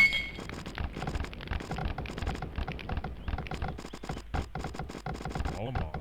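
A rapid, irregular run of clicks and taps, many a second, like quick typing.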